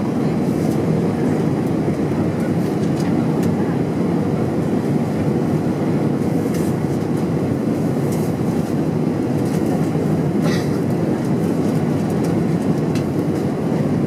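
Steady rumble of airflow and engine noise inside an Airbus A320 cabin descending on approach, with a few faint brief clicks over it, the clearest about ten and a half seconds in.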